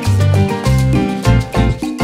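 Upbeat background music with a bass line that changes notes every half second or so under quick melody notes.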